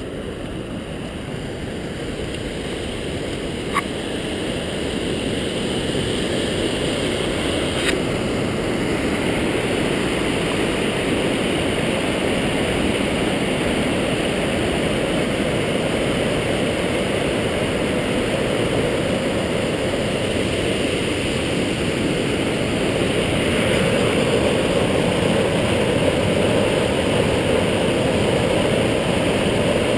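Whitewater river rushing over granite at the lip of a waterfall, a steady roar that grows louder as the water comes nearer.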